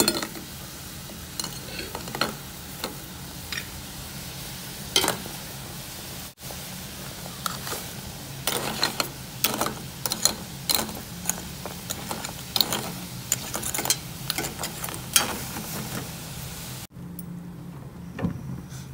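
Water boiling hard in a steel pot with baking soda and aluminium foil: a steady fizzing hiss with many sharp pops and clicks.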